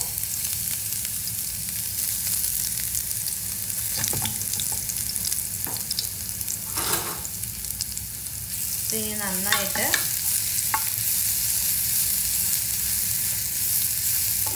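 Ginger-garlic paste sizzling in hot olive oil in a pan, with a steady frying hiss. A spoon stirs and scrapes the pan now and then, giving a few short clicks.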